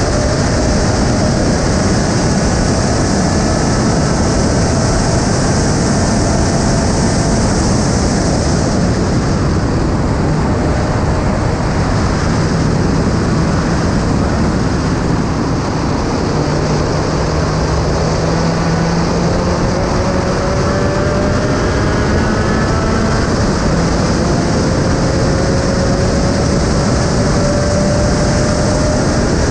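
Onboard sound of a Spec Racer Ford Gen 3 at speed: heavy wind rush over the microphone with the four-cylinder engine note underneath. The engine's pitch climbs slowly through the second half as the car pulls through a gear.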